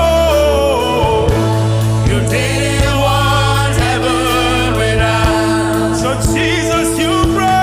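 Gospel worship music: voices singing over a band with sustained bass notes and a steady drum beat.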